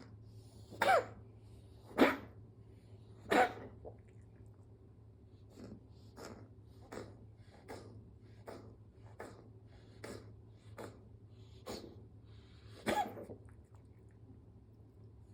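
A coughing fit: three loud, harsh coughs about a second apart, then a run of softer, evenly spaced hacks a little more than one a second, and one more loud cough near the end.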